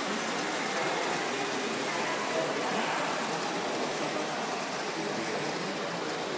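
Gauge 0 tinplate model trains running on tin track: a steady rattling clatter of wheels on the rails, with indistinct voices in the background.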